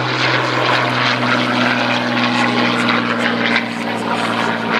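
Hawker Hurricane Mk.1's Rolls-Royce Merlin V12 engine and propeller running in flight, a loud, steady drone.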